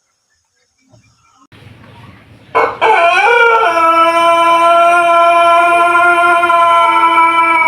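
Pelung rooster crowing: one long crow that starts about two and a half seconds in, bending up in pitch at its onset and then held steady on one note for five seconds or more.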